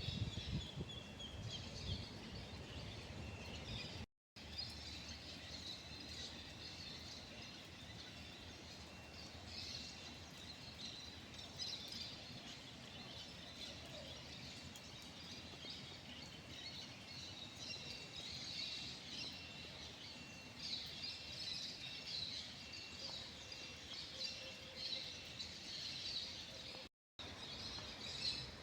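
Many birds chirping and singing at once in a rural chorus, with one steady, evenly repeated note pulsing through the middle of it. The sound cuts out completely for a moment twice, at about four seconds in and near the end.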